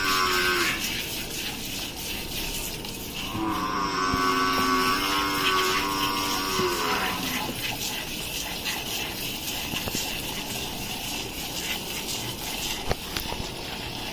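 A cow moos once, a long call of about three and a half seconds starting about three seconds in, over the faint steady hiss of milk squirting from the teats into a steel bowl during hand-milking.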